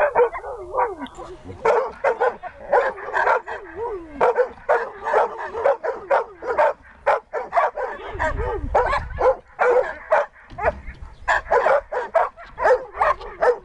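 Siberian husky barking and yelping in rapid, repeated calls, several a second, with no real pause.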